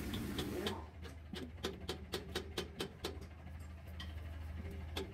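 Quick irregular metal clicks and taps from hand work on a Hino truck's inline diesel injection pump, thinning out after about three seconds, over a steady low hum.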